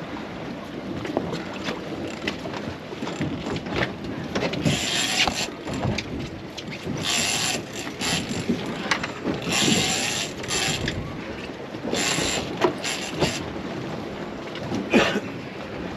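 Fishing reel being worked against a hooked fish: mechanical clicking and gear noise from the reel, with spurts of about a second each, over wind on the microphone.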